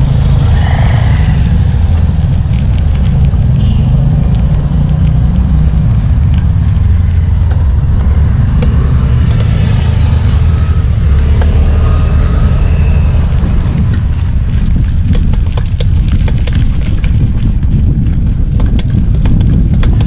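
Steady low rumble of wind buffeting the microphone and road noise from a mountain bike being ridden. A patter of light clicks comes in near the end.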